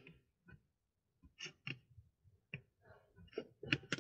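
Faint, scattered clicks and light knocks of metal parts being handled as a new hydraulic filter, with its check-valve mechanism fitted, is set gently into its housing.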